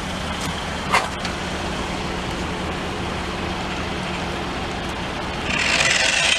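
Steady traffic noise. Near the end a louder, higher whir rises over it, from the radio-controlled toy car's small electric motor and plastic wheels running along the concrete ledge.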